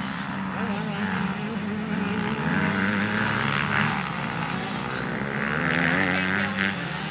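Several motocross bikes' engines running hard on the track, their pitch wavering up and down with the throttle and swelling louder about six seconds in.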